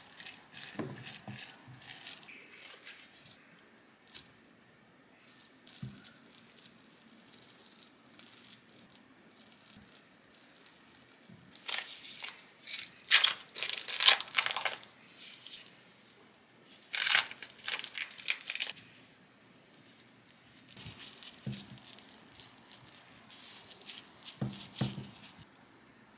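Plastic wrapping crinkling and tearing as processed cheese slices are unwrapped, in two loud stretches about halfway through, with quieter rustling, a spatula working rice in a glass jug at the start, and a few dull knocks on a wooden cutting board.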